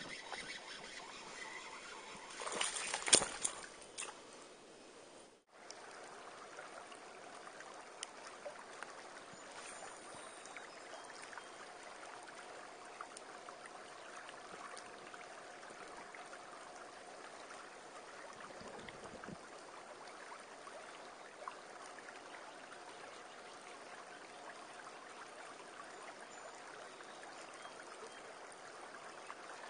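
Small creek water trickling and flowing steadily. About three seconds in, a short burst of loud knocks, and a moment later the sound cuts out briefly before the steady water sound resumes.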